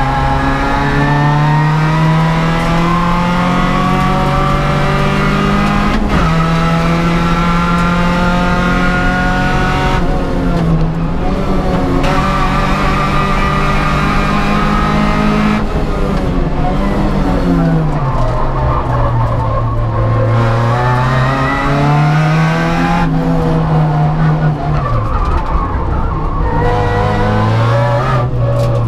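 Opel Kadett GSI 2.0 Group N race car's four-cylinder engine under hard acceleration, its pitch climbing through the gears and breaking off briefly at each upshift, several times over. Twice the pitch falls away as the car brakes and downshifts for corners.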